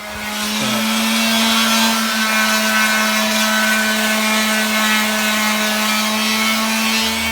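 Power sander running steadily against a car wheel, a constant motor hum under a sanding hiss.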